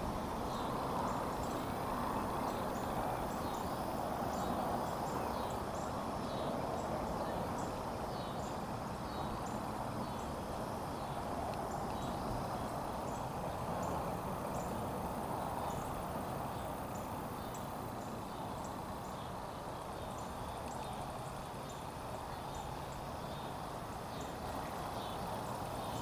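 Shallow creek water running over stones, a steady rushing, with faint short high chirps repeating over it.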